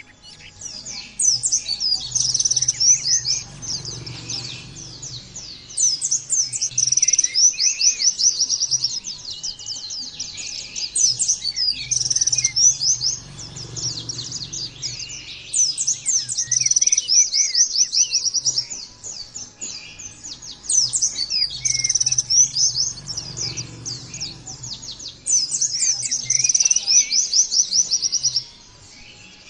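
White-eye (pleci) singing a fast, high twittering song in phrases a few seconds long, separated by short pauses, over a faint low hum.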